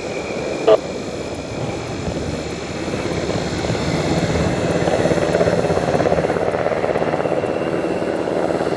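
A-10 Thunderbolt II's twin General Electric TF34 turbofan engines, jet noise building as the aircraft comes in low, growing louder from about three seconds in, with a faint high whine through it. A short sharp sound comes about a second in.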